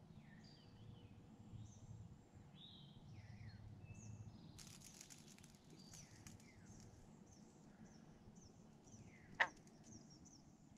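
Faint outdoor ambience of many birds chirping and calling in short rising and falling notes over a low steady rumble. A brief patch of clicking comes about halfway through, and a single sharp click, the loudest sound, near the end.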